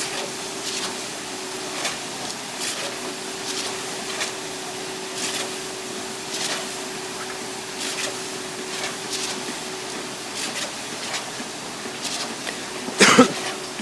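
Construction-site machinery running with a steady hum, with faint short knocks about once a second. A short loud burst near the end.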